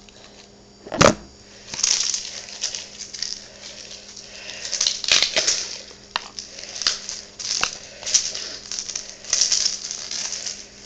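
A knock about a second in as the camera is set down, then repeated rustling and crinkling of handling close to the microphone.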